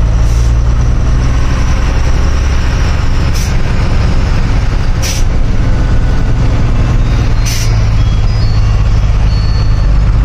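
Heavy truck's diesel engine running steadily under way, with four short hisses of air from its air-brake system.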